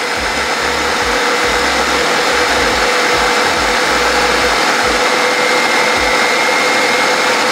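Electric food processor running steadily on low speed, with a steady motor whine, blending basil, garlic and pine nuts into pesto as olive oil is poured in.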